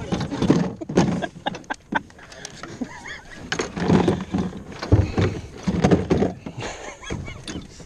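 A large shark thrashing on a fishing boat's deck: irregular thumps and knocks of its body and tail slapping against the boat, with men's voices in between.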